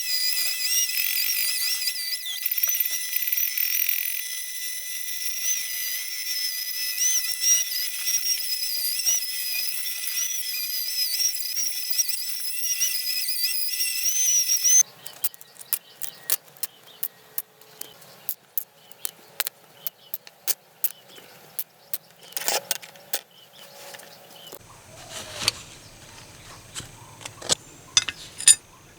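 A small high-speed power tool whines steadily on a die-cast metal toy car, then stops suddenly about halfway through. Scattered sharp clicks and taps follow.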